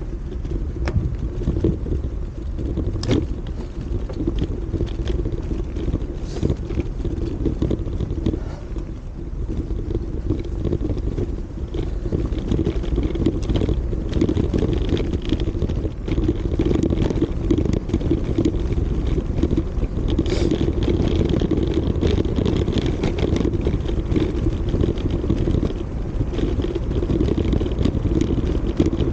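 A bicycle in motion: steady wind noise on the action camera's microphone mixed with tyre noise on the pavement. A few sharp clicks and rattles from the bike going over bumps come about 3 s in, about 6 s in and about 20 s in.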